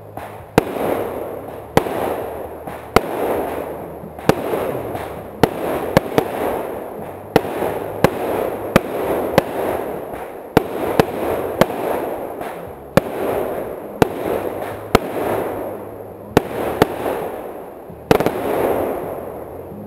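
Fireworks firing in a rapid volley: about twenty sharp bangs, roughly one a second and quicker in the middle, with a hissing rush between them. The last bang comes near the end.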